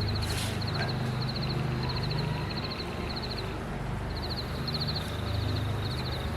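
Frogs calling in short repeated trills, a group every half second or so, over a steady low rumble that starts abruptly.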